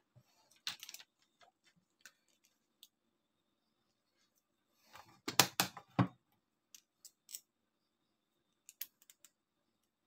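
Scattered clicks and light knocks from handling an analog multimeter and turning its rotary range selector, with the loudest cluster of clicks about five seconds in.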